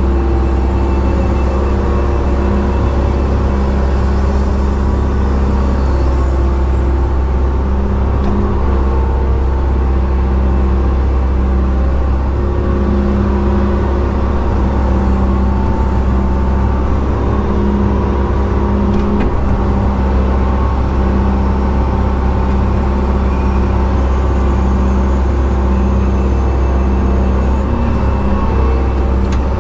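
Excavator's diesel engine running steadily under load, heard from inside the cab as the hydraulics work the bucket digging a trench, with a deep hum and an engine note that swells and eases with the digging.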